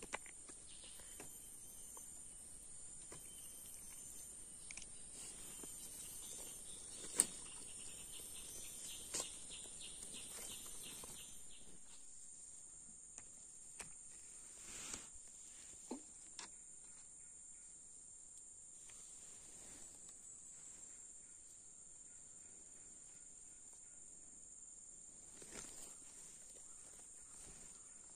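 Faint, steady high-pitched drone of forest insects. A few seconds of rapid pulsed chirping come in about a third of the way through. A few sharp clicks and rustles are scattered over it, the loudest about seven seconds in.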